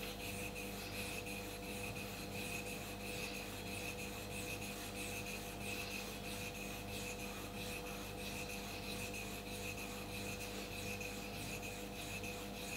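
A steel hair-clipper blade plate rubbed back and forth, held flat on a wet 1000-grit Naniwa Chosera waterstone: a steady, repeated scraping of polishing strokes. The stone is polishing the flat contact face and edge left by the diamond plate.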